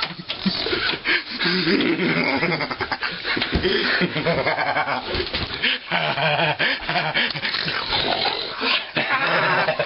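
A man laughing loudly, with other vocal noises that are not words.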